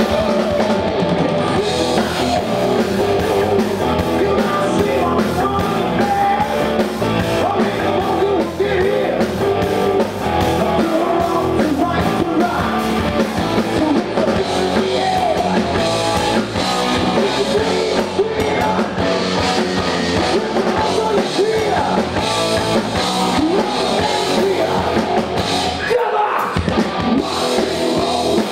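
Hard rock band playing: electric guitars, bass and drums, with a male voice singing.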